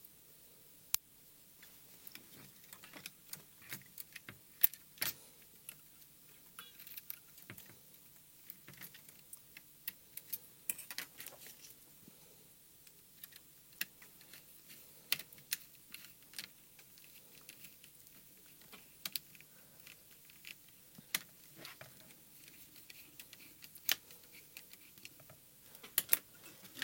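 Small clicks, taps and light rattles of little screws, a screwdriver and plastic parts being handled while a gimbal is fitted into a radio transmitter's case. They come irregularly and sparsely, a few louder than the rest.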